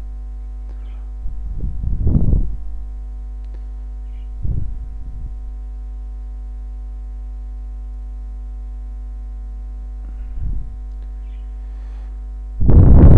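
Steady electrical hum with many evenly spaced overtones from the recording setup, broken by three short, soft noises.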